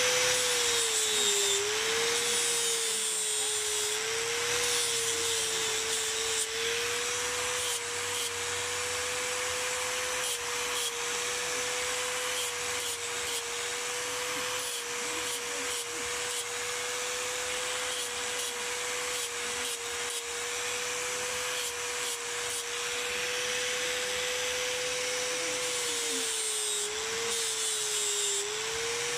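Electric angle grinder with an abrasive disc running and grinding water buffalo horn: a steady high motor whine over a rasping hiss. The whine sags slightly a few times, near the start and again near the end, as the disc is pressed into the horn.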